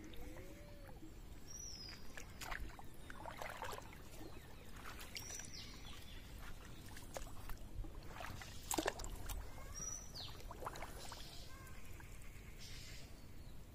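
Water-side sounds: scattered short splashes and knocks, the loudest a little past the middle, with two short high bird chirps that fall in pitch, once early and once late.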